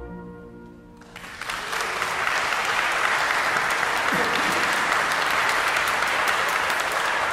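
The last chord of the music dies away in the church's echo. About a second in, the audience starts clapping and keeps up steady applause.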